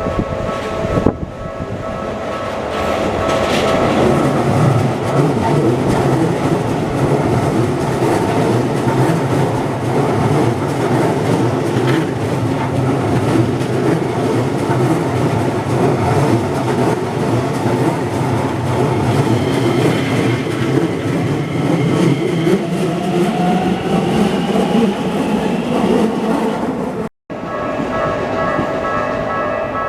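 Keisei 3100 series electric train passing over a level crossing, its wheels clattering, with the crossing warning bell ringing and a rising whine late in the pass. The sound cuts off abruptly near the end, and the crossing bell then rings on its own.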